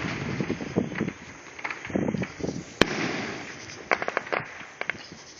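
Fireworks going off: one sharp bang about three seconds in, with bursts of quick crackling pops before and after it.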